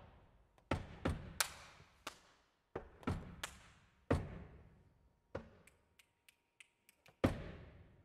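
Flamenco zapateado: a dancer's shoes stamping and heel-striking on a wooden tabletop, a series of sharp, irregularly spaced strikes, each ringing briefly in the hall. Toward the end the strikes turn into lighter quick taps, closed by one hard stamp.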